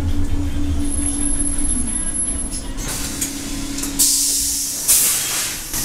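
A 2012 Nova LFS transit bus stopping at the curb: the engine hums steadily, then about four seconds in its air system lets out two loud bursts of air hiss, the second the louder, as the brakes set and the front doors open.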